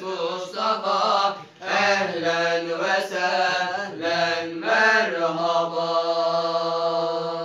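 Several male voices chanting an Islamic hymn together without accompaniment, in wavering, drawn-out phrases with a brief break for breath about a second and a half in. Near the end they hold one long note, which stops at the close.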